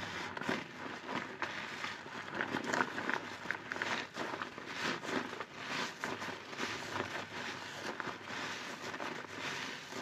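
A new foam sponge full of detergent suds squeezed over and over by rubber-gloved hands in soapy water: wet squelching and a fizzing crackle of popping foam bubbles, swelling with each squeeze.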